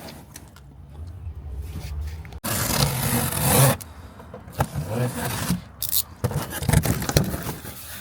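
Cardboard box and packaging being handled, with scraping and rustling; the loudest scraping comes in a stretch of about a second near the middle, followed by scattered clicks and another short scrape.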